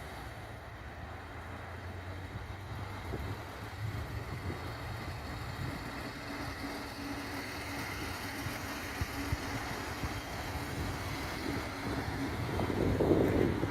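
Steady low vehicle rumble that slowly grows louder, with a held tone in its second half and a louder surge near the end.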